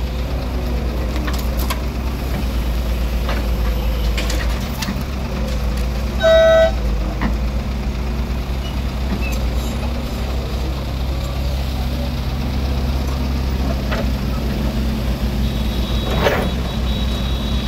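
Crawler excavator's diesel engine running steadily as it loads dirt and broken asphalt into a dump truck, with occasional knocks. About six seconds in, a horn gives one short toot, the loudest sound.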